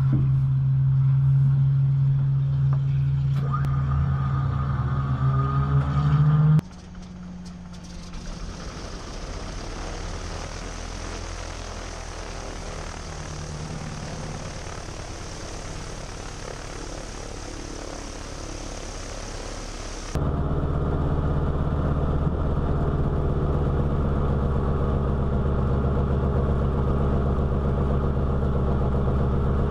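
A North American NA-64 Yale's Wright R-975 Whirlwind nine-cylinder radial engine running steadily at low taxi power. It is loud from inside the cockpit. About a quarter of the way in it drops to a quieter, airier drone from outside on the wing, and about two-thirds in it returns loud from the cockpit.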